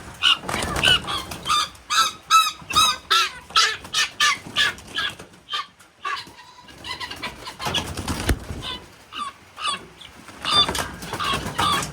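Guinea fowl calling in a fast run of short, repeated notes, about three a second, with a brief lull just before halfway. There is a single sharp knock about eight seconds in.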